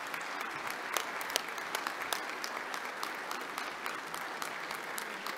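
A crowded hall of audience members applauding steadily, many hands clapping at once.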